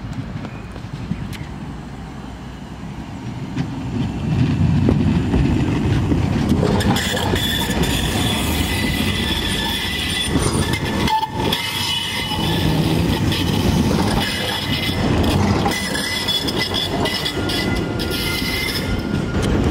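PESA 2014N Krakowiak low-floor tram approaching and passing close by: the rumble of its wheels on the rails grows loud about four seconds in, with high-pitched wheel squeal over most of the rest.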